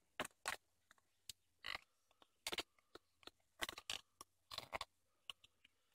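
Tip of a folding knife being worked into the side of a small firework shell to bore a fuse hole: faint, irregular scratching and crackling clicks.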